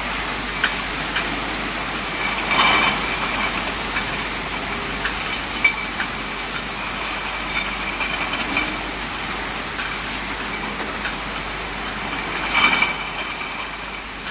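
Bottle decapping and washing machinery running: a steady mechanical noise with a high whine and scattered small clicks and clinks, and two louder bursts about three seconds in and near the end.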